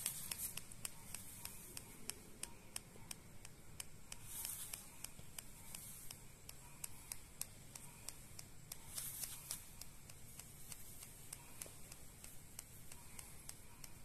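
Quiet, scattered small clicks and scratchy rustles from a cockatoo moving about on a chair-back perch, with two brief soft rustles about four and nine seconds in.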